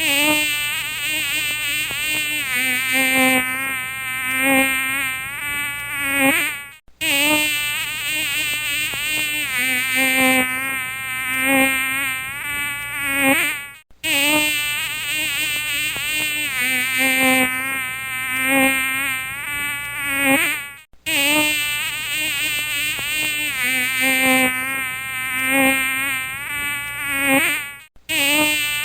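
Mosquito whine: a steady wingbeat buzz whose pitch wavers up and down as it flies about. It is a short recording looped, cutting out briefly about every seven seconds and starting over.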